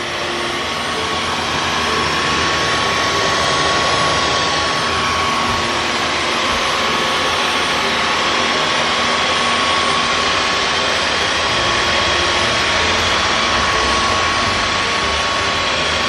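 Dyson V15 Detect cordless stick vacuum running steadily with its laser floor head on a hard tiled floor: a continuous rush of air with a steady high whine.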